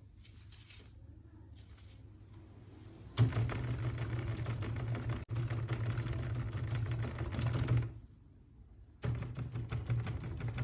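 A small motor running with a rapid rattling buzz and a low hum. It starts about three seconds in, cuts out about five seconds later, and starts again near the end.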